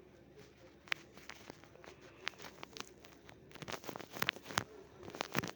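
A run of irregular light clicks and taps, sparse at first and coming thicker and louder from about halfway through.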